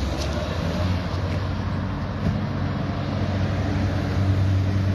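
Car engine running as a car pulls away at low speed, a steady low hum that grows a little louder near the end.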